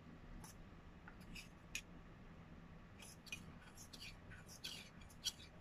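Metal spoon stirring a thick honey, coconut oil and castile soap mixture in a stainless steel cup: faint, irregular scrapes and clinks of spoon against the cup wall.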